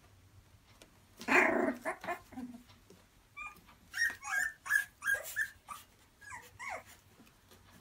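Three-week-old Boxer puppies vocalising as they play-fight: a short, loud, harsh growl about a second in, then a run of short, high squeaks and yips, several falling in pitch.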